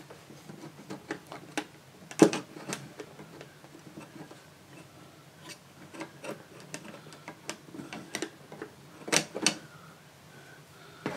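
Scattered light clicks and taps of metal parts being handled as an oscilloscope plug-in's metal back panel is fitted onto its frame. Louder knocks come about two seconds in and twice near the end.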